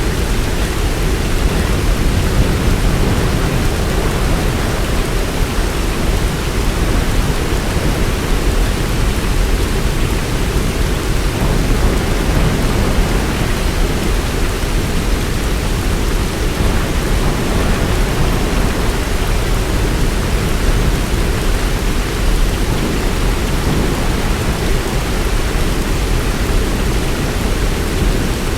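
Heavy rain falling steadily: an even rushing hiss with a deep low rumble beneath it, unchanging throughout.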